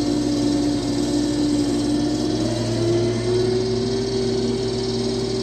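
Case IH combine's diesel engine running steadily as the machine drives, its hum rising slightly in pitch about halfway through.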